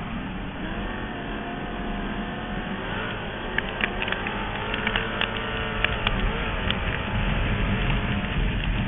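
Onboard sound of a USAC/CRA wingless sprint car's 410 V8 at racing speed, heard through heavy wind buffeting on the camera. The engine note swings up and down as the throttle comes on and off. A scatter of sharp clicks and knocks comes through the middle.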